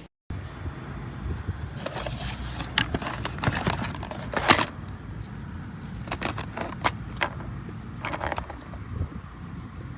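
Low steady rumble of a car with irregular clicks and rattles of small hard objects being handled, loudest about four and a half seconds in.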